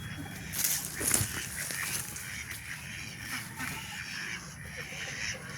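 Free-range country chickens clucking and squawking in short repeated calls, with a louder burst of noise about a second in.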